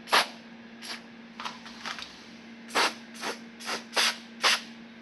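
Aerosol can of silicone spray lubricant giving about nine short, quick hissing spurts into a door hinge, some close together, others a second or so apart.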